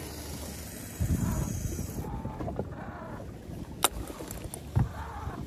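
Low wind and water noise around a small open boat, with a few sharp clicks: the loudest comes nearly four seconds in and another about a second later.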